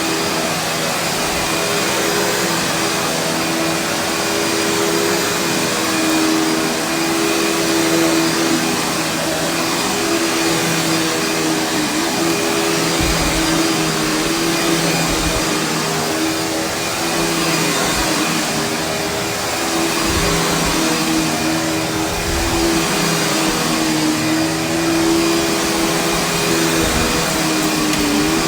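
Panasonic vacuum cleaner with brush roll running steadily on carpet, its motor hum wavering slightly in pitch as it is pushed back and forth, with a few low bumps now and then.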